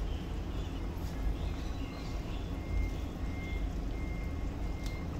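Steady low kitchen rumble from the stove area, with a faint thin high whistle coming and going.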